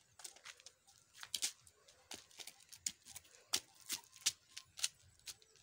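Rubber flip-flops slapping on concrete steps as a child walks down them: an irregular run of sharp slaps, about two or three a second, getting louder after the first second.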